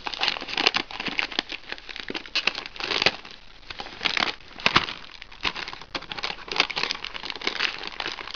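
Thin white wrapping crinkling and rustling in quick irregular bursts as it is pulled open with one hand.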